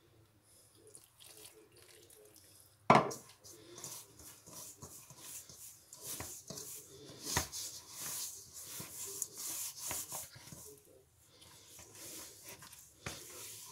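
Hands mixing water into flour in a stainless steel bowl to make a stiff dough: irregular squishing and scraping of the wet flour against the metal, with one sharp knock about three seconds in.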